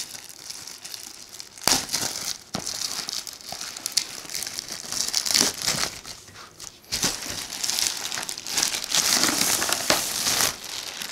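Clear plastic shrink wrap crinkling and crackling as it is torn and peeled off a cardboard box, in uneven bursts, busiest in the second half.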